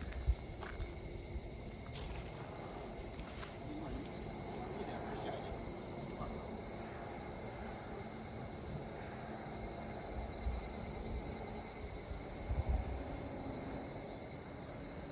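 A steady chorus of insects chirping in rapid, even trills, with a low rumble underneath and a few soft low thumps near the start and again near the end.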